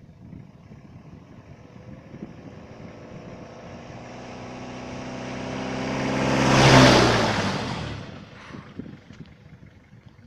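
Toyota pickup truck driving up and passing right by, its engine note growing steadily louder to a sharp peak about seven seconds in, then falling away quickly as it goes past.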